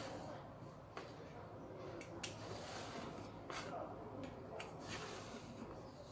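A handful of light taps and clicks on the kitchen worktop, each followed by a short scraping rustle, from handling a ruler and tape measure while marking out dough.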